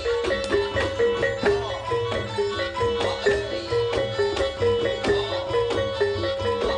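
Jaranan gamelan music: struck metal keys play a quick, repeating pattern of short notes over steady drumming.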